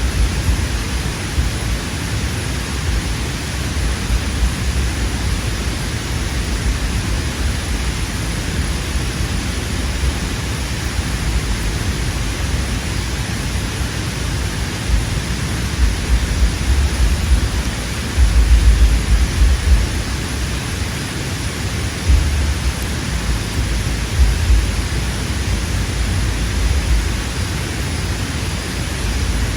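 Wind buffeting the microphone: a steady rushing hiss with gusts of low rumble, strongest about two-thirds of the way through.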